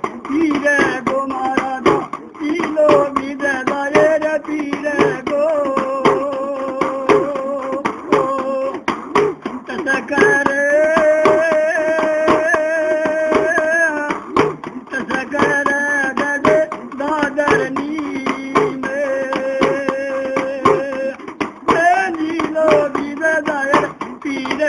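Music: a Haryanvi folk song, with singing over instrumental accompaniment and long held notes.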